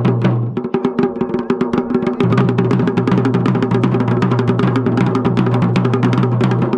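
Dhol and damau, Garhwali folk drums, played together in a fast, dense rhythm of many strokes a second over a sustained low ringing tone.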